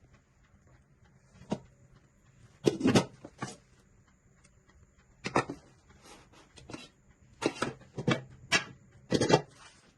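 Pieces of a granite-coated nonstick pots and pans set being handled, giving a run of irregular knocks and clatters, about a dozen in all, several in quick pairs.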